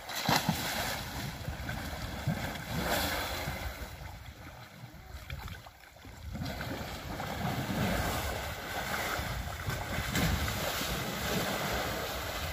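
Water splashing and churning as two African elephants wrestle in a river, easing off for a moment about halfway through before building up again.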